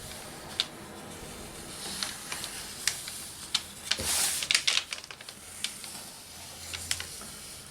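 Scissors cutting painted paper flowers: scattered light snips and clicks with paper rustling, the loudest rustle about four seconds in.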